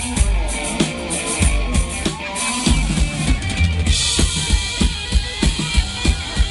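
A little big band playing live, with the drum kit to the fore: regular kick and snare strikes over bass, and cymbals joining in bright about four seconds in.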